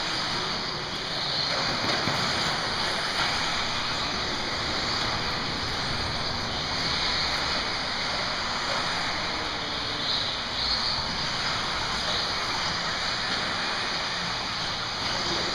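Steady noise of 1/10-scale 4x4 radio-controlled cars running on an indoor off-road track: motor whine and tyre noise blended into a continuous din.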